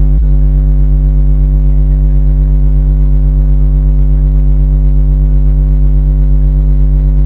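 Custom 12-inch subwoofer playing a sine-wave test tone at about 48 Hz during an SPL burp test, reaching about 138.6 dB inside the car's cabin. The tone is a steady, very loud low drone with a buzzy, distorted edge.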